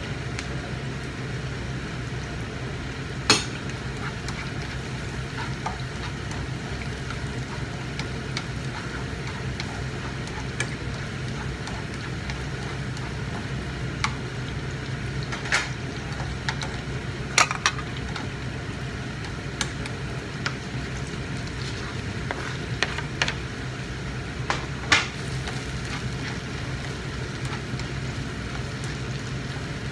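Onions and chopped vegetables sizzling in a frying pan, with a spatula stirring them and knocking sharply against the pan several times. A steady low hum runs underneath.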